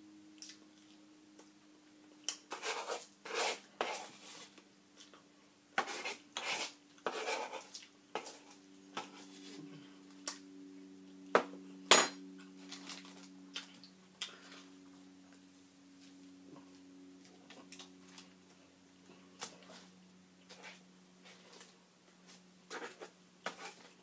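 A metal spoon clinking and scraping in a soup-filled bread bowl in short irregular strokes, with one sharp clink about halfway through. A faint steady hum runs underneath.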